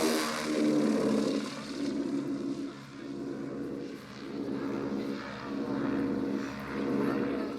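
PBY-5A Catalina's twin radial piston engines droning as the flying boat passes. The pitch falls at the start, then the drone swells and fades.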